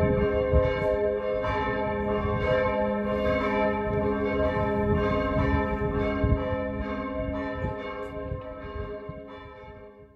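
Church bells ringing, struck about twice a second, each stroke ringing on into the next. The ringing grows fainter over the last few seconds and stops abruptly near the end.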